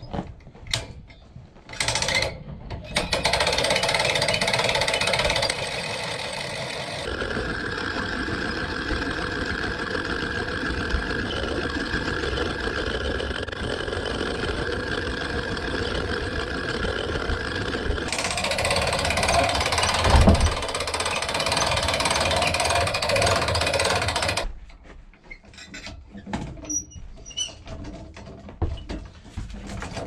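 Hand-cranked log winch with a ratchet lock, its pawl clattering rapidly and without a break as the synthetic rope is wound in under the load of a log. It starts about three seconds in, changes tone twice, and stops sharply near the end.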